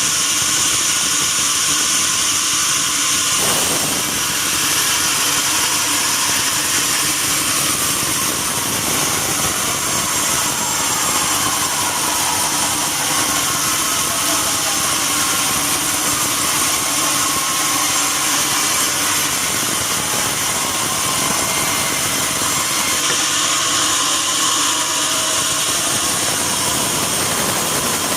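Sawmill bandsaw running with a steady, high-pitched mechanical noise.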